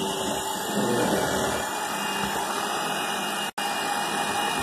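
Electric hand mixer running steadily, its beaters working a bowl of white flour dough.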